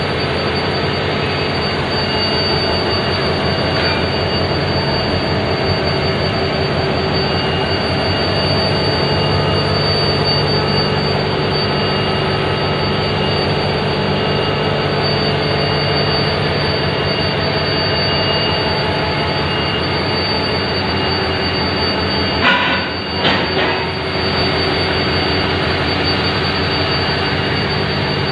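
Railway diesel engine running steadily, with a high steady whine over its low hum. A few sharp metallic knocks come close together near the end.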